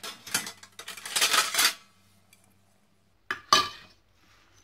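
Stainless steel plates clinking and scraping as hands break up and re-roll a crumbly dried onion-lentil mixture: a run of clattering scrapes in the first two seconds, then a sharper clink about three and a half seconds in.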